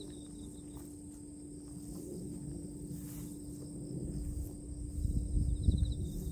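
Crickets or similar insects calling from the grass: a steady high-pitched chirring with short pulsing trills. From about four seconds in a low, uneven rumble grows louder over it.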